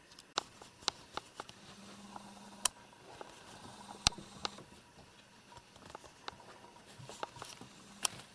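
Irregular light clicks and taps, a few sharper ones among them, as a kitten scampers and pounces on a rug.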